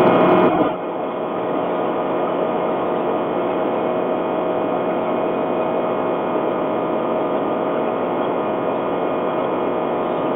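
Nissan Qashqai 2.0 CVT running steadily under way, with a steady whistle over the road and engine noise: the strange whistle that appears when the car revs, which the owner takes for a possible CVT fault.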